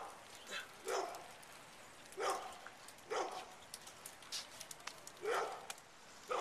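A dog barking repeatedly, short single barks about a second apart, with a longer pause a few seconds in.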